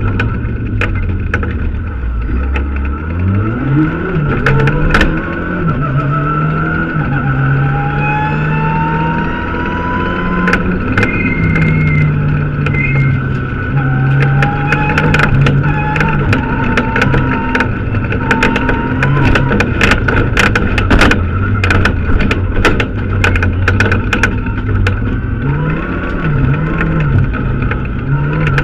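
Mitsubishi Lancer Evo X rally car's turbocharged four-cylinder engine, heard from inside the cabin, accelerating hard from low revs about three seconds in, then revving up and down through gear changes. Gravel stones ping and rattle against the underbody throughout, most thickly in the second half.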